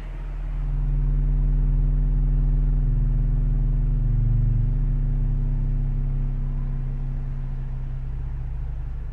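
A 12-inch subwoofer in a homemade 8th-order bandpass enclosure plays a steady sine-wave bass tone with overtones above it, heard inside an SUV. The tone is lowered from the high 30s to the high 20s of hertz, and it grows gradually quieter as the pitch drops: the box rolling off at the low end.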